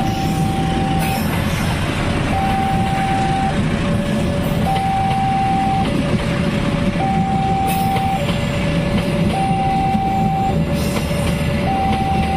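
A railway level-crossing warning signal sounds a slow two-tone alarm, a higher tone and a lower tone taking turns about every second and a bit. Under it runs the steady rumble of a passenger train's stainless-steel cars passing close by on the rails, with a few brief rattles.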